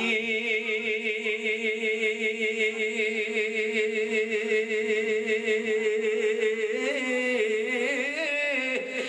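A man's solo voice singing one long held note with a quick waver for about six and a half seconds, then sliding up and down through a short melodic turn near the end.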